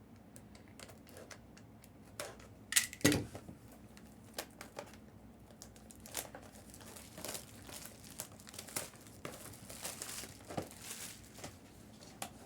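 Plastic packaging crinkling and tearing as a box is opened by hand, with two sharper knocks about three seconds in.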